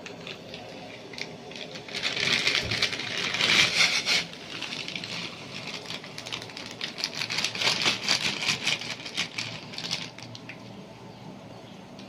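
Pot of boiling water bubbling and crackling as blocks of dry instant noodles are pushed under. It is a hissing, crackly sound full of small pops that swells about two seconds in and dies down near the end.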